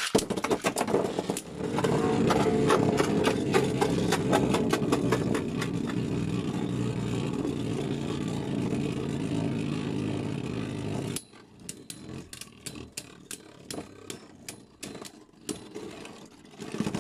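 Two Beyblade Burst tops, Vanish Fafnir and Rage Longinus, spinning and clashing in a clear plastic stadium: a loud, steady rattling whir with rapid clicks. It drops off suddenly about eleven seconds in, leaving quieter spinning with scattered clicks of contact.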